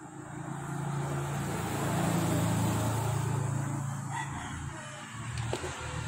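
An engine running, rising in level over the first couple of seconds and then holding steady as a low hum.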